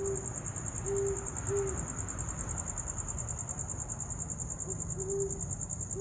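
An owl hooting: a group of three low hoots at the start, the middle one the longest, and another group of hoots near the end. Crickets chirp steadily underneath.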